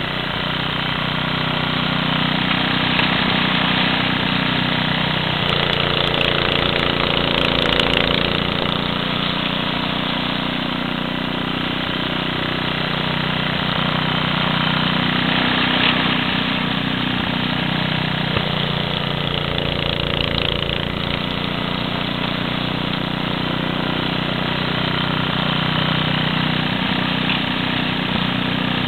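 Snow blower engine running steadily while clearing snow, its note shifting a couple of times as the load changes.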